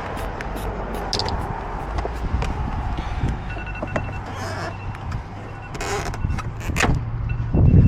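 Irregular sharp clicks and taps from lockout tools working at a car door, over a steady low hum. A few short electronic beeps sound from about three and a half seconds in, and there is a louder thump near the end.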